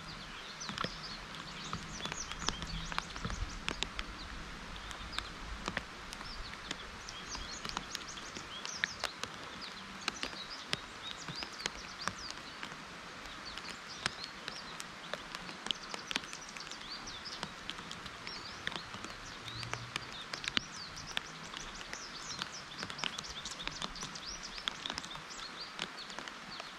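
Steady rain falling on trees and leaves, with frequent irregular sharp drip ticks and scattered high bird chirps.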